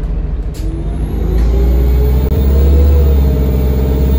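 Alexander Dennis Enviro200 MMC bus with an Allison T2100 automatic gearbox pulling away and accelerating, heard from inside the saloon: a low engine drone grows louder from about a second in while a driveline tone climbs in pitch. One sharp click about half a second in.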